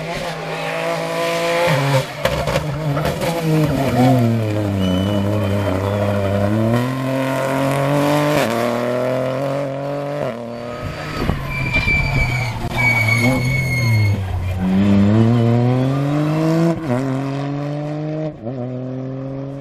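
Rally car engine at high revs, its pitch falling twice as it downshifts and climbing again as it accelerates away. There are two short high-pitched squeals a little past the middle.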